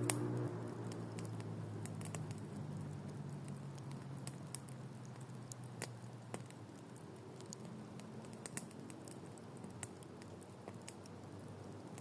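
Campfire crackling and popping in scattered, irregular snaps, over a low engine-like hum that fades away over the first half.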